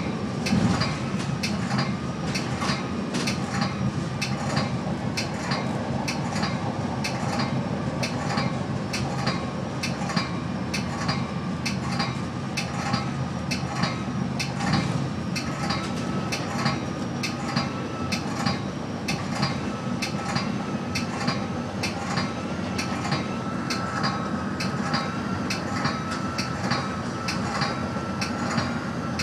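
Metra passenger train running, heard from inside its Nippon Sharyo cab car: a steady low rumble of the train rolling along the track, with sharp, evenly spaced ticking throughout.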